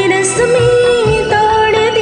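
A woman singing a Hindi film song over a karaoke backing track, holding a wavering melodic line against a regular percussion beat.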